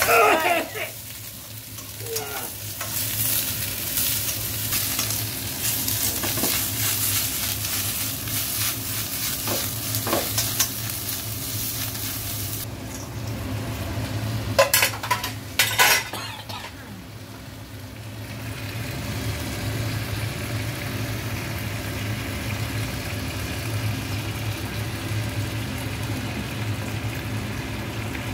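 Stir-frying in a wok: vegetables and pork pieces sizzling in hot oil while a steel ladle stirs and scrapes against the pan. The sizzle drops away a little before halfway, a few sharp ladle knocks follow, and a steady low hum runs underneath.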